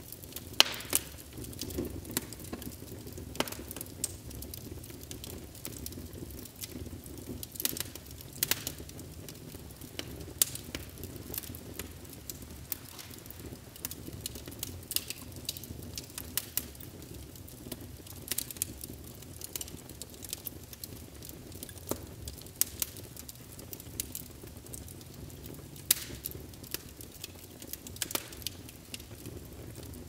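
Fireplace fire crackling, with irregular sharp pops over a low, steady rumble of flames.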